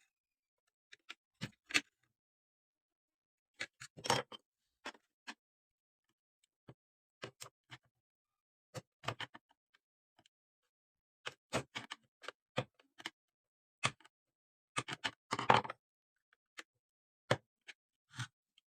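Irregular clicks, knocks and short scrapes of hands handling parts and tools at a workbench, with pauses between them. The busiest and loudest is a rattling scrape about fifteen seconds in.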